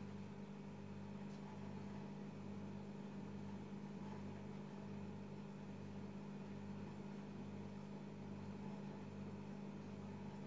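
A steady low mechanical hum, with a lower part that swells and fades evenly, somewhat under twice a second.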